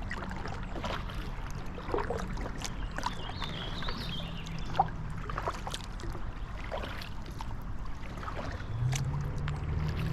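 Kayak paddle dipping and dripping, with irregular small splashes and trickles of water over a low rumble. A low steady hum comes in near the end.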